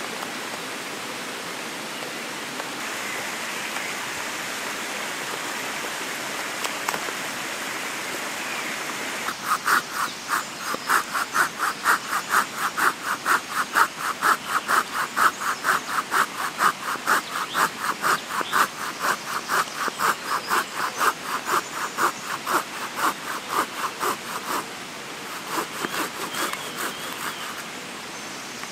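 Steady hiss of rain on a tarp, then a hand saw cutting through a log in fast, even strokes, about three a second. The sawing runs for some fifteen seconds, then slows to a few fainter strokes and stops.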